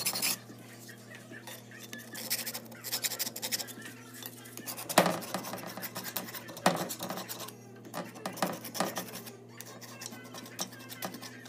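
Scratchy rubbing and light metal clinks from an old rusty cast-iron bench vise being handled and worked by hand, with two sharper knocks about five and six and a half seconds in.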